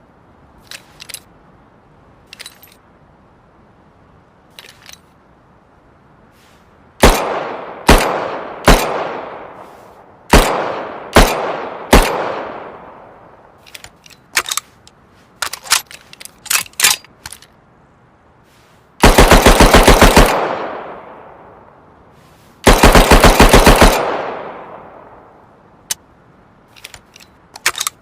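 Handmade submachine-gun sound effect: six single loud shots, each with a long echoing tail, then two rapid full-auto bursts of about a second and a half each. Light mechanical clicks come before, between and after the shots.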